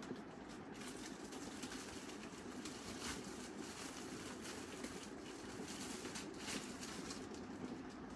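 Faint, scattered rustles and light knocks of packaged clothing being pulled and shifted on a shelf, over a steady low room hum.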